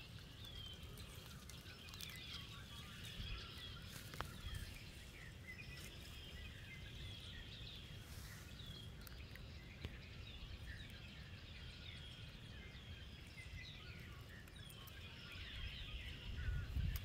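Faint swamp ambience: many small birds chirping, short high calls overlapping throughout, over a low rumble that grows louder near the end.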